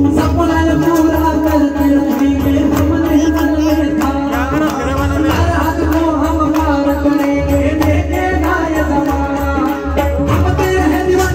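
Indian devotional song music: a melody over a steady held drone, with a hand-drum beat underneath.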